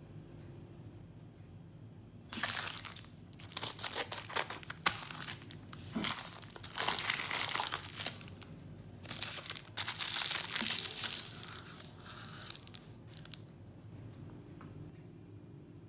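A plastic postal satchel being torn open and the plastic packaging handled, giving irregular bursts of crinkling and tearing that start a couple of seconds in and stop a few seconds before the end.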